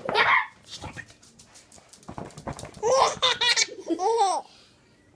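Baby laughing in bursts: a short laugh at the start, then a longer run of squealing, hiccuping laughter about three seconds in that stops near the end.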